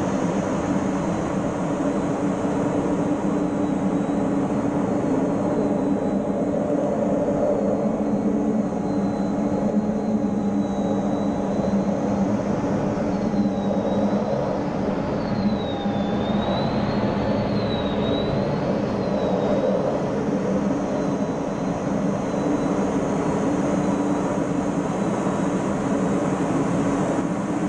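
F-16 fighter jet noise heard from inside the cockpit in flight: a steady engine and airflow rush with low steady hums. A high thin whine in it wavers up and down in pitch a little past the middle.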